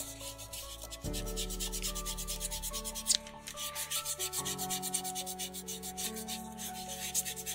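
Rapid back-and-forth scratching of a drawing tool on paper, many strokes a second, over soft background music chords.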